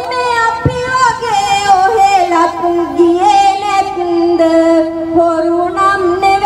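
A woman singing Sinhala impromptu verse (hitiwana kavi) in a slow traditional chant, holding long notes with wavering, gliding ornaments, amplified through a microphone.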